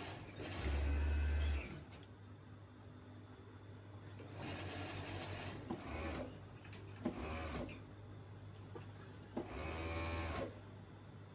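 Industrial overlock sewing machine (serger) stitching a side seam of knit shorts in five short runs of about a second each, the first the loudest, with pauses between. A steady low motor hum runs underneath.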